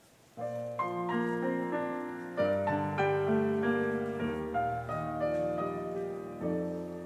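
Yamaha grand piano playing the slow introduction to a choral anthem, starting about half a second in: held chords with melody notes above, a new bass note every couple of seconds.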